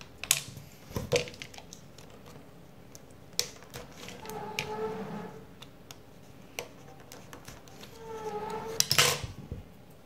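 Small plastic parts clicking and tapping as they are handled on a tabletop, with two squeaky scraping passes of a utility knife blade cutting through a plastic pen cap, about four and eight seconds in; the second ends in a burst of sharp clicks.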